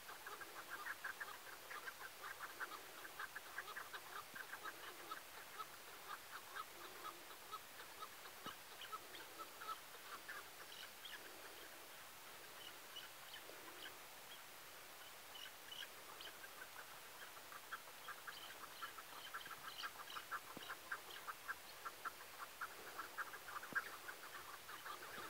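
Chukar partridges calling: long runs of rapid, repeated chattering notes that ease off in the middle, with fainter, higher notes from another bird over that middle stretch.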